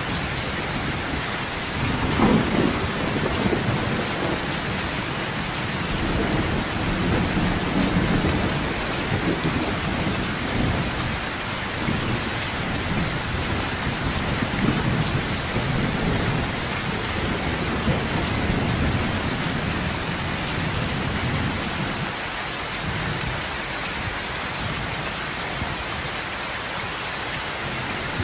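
Heavy rain drumming on a sheet-metal roof, a steady hiss, with thunder rumbling underneath: a sharper peal about two seconds in, then further rolling rumbles through the middle.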